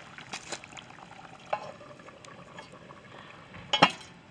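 Beef stew bubbling and sizzling in an open cast iron Dutch oven on a campfire, cooking hard, with scattered small clicks. There is a sharp knock about a second and a half in and a louder metal clatter near the end.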